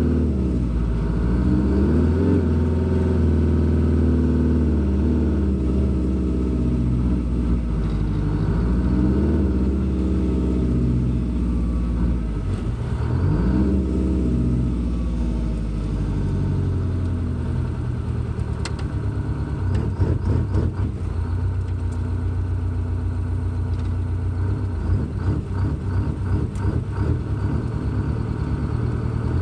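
Detroit Diesel 8V71 two-stroke V8 of a 1968 GMC cab-over truck, heard from inside the cab while pulling through the gears of a 15-speed transmission. The engine pitch climbs and drops again several times as it revs up and is shifted. Sharp clicks and rattles come in during the second half.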